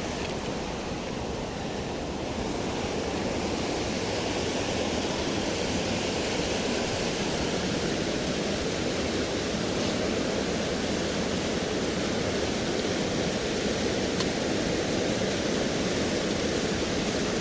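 Steady rush of a river running high in flood. It grows a little louder about two seconds in.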